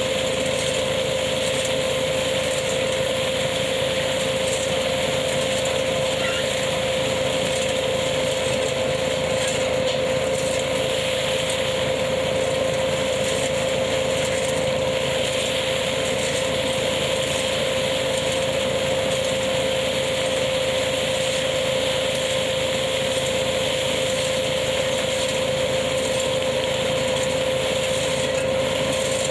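Tractor-driven KF-501 hazelnut picking machine running steadily: an even mechanical drone with one constant mid-pitched hum that holds without change.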